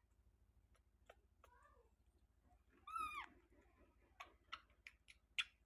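Baby monkey giving high, squeaky calls: a soft falling one about a second and a half in, then a clearer one about three seconds in, as Kiki waits thirsty for milk. A run of soft clicks follows near the end.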